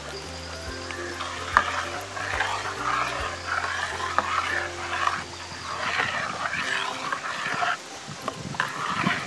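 A perforated metal ladle stirring thick milk and apple paste in an aluminium pot, a wet scraping swish with a few sharp clinks of metal on the pot. Soft background music runs underneath for the first part.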